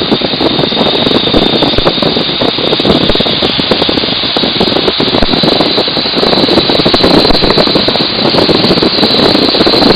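Boeing-Stearman N2S-3 biplane's radial engine running at reduced power, nearly buried in a loud, steady rush of wind over the open-cockpit airframe, with the engine throttled back for the landing approach.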